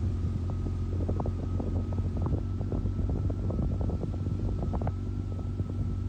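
A motor vehicle's engine running steadily while on the move, a low hum with a faint high whine over it and scattered light ticks.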